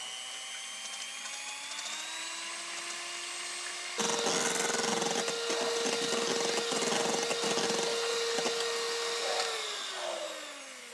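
Electric hand mixer beating egg whites to stiff peaks in a stainless steel bowl. The motor whine climbs in pitch over the first few seconds, then, louder after an abrupt change about four seconds in, holds steady and winds down near the end.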